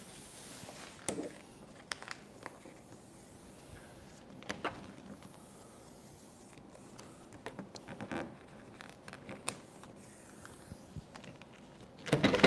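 Faint scrapes, crinkles and small clicks of adhesive vinyl wrap being pressed and worked by hand around the edges of a mini fridge, scattered every second or few, with a louder stretch of handling noise near the end.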